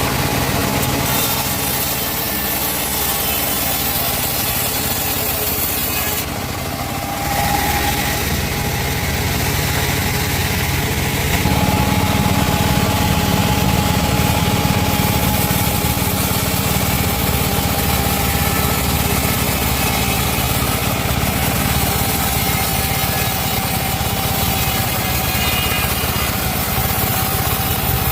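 Long-bar chainsaw running and cutting through teak wood, the engine held at a steady high speed. A short dip about six seconds in, then from about eleven seconds the sound grows louder and heavier as the saw works under more load.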